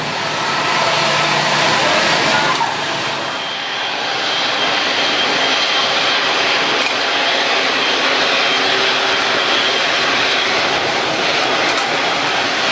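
Jet airliner's engines running loud and steady as it passes, with a thin high whine coming in about three seconds in.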